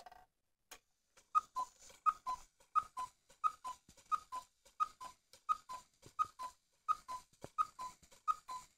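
Vintage Regula cuckoo clock calling the hour from its two bellows pipes: a two-note cuckoo, high then low, repeated about a dozen times at a steady pace of roughly one call every 0.7 seconds. Each call comes with the clicking of the bellows and lift wires in the movement.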